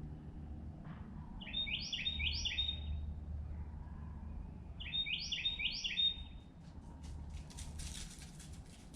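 A songbird singing twice, each time a quick phrase of repeated chirping notes lasting about a second and a half. Near the end there is a run of faint crackling clicks, over a steady low background hum.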